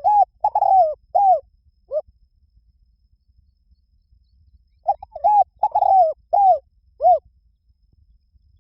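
Spotted dove cooing: a phrase of about five short, arched coos, a pause of about three seconds, then a second phrase of about six coos.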